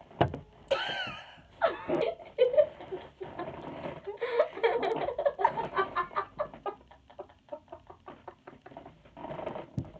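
Girls laughing and giggling in many short bursts, with a sharp knock just after the start.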